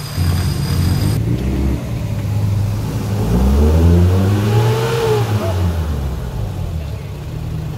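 Off-road 4x4's engine revving hard while the vehicle is bogged in deep mud. Its pitch climbs over about two seconds, peaks, then falls away.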